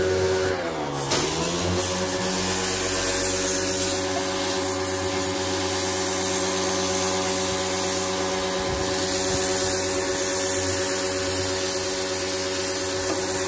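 A pressure washer running steadily: a motor hum with the hiss of the water jet over it. About half a second in, the spray briefly stops and the motor's pitch dips, then recovers as the spray resumes.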